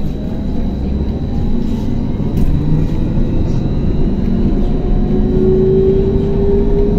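Trolleybus running, heard from inside the passenger cabin: a dense low road and body rumble, with the electric traction motor's whine rising in pitch, strongest from about five seconds in. A thin, steady high whistle sits above it.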